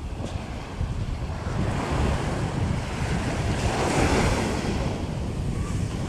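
Small ocean waves breaking and washing up a sandy shore, the surf swelling to a peak about four seconds in and then easing back, with wind rumbling on the microphone.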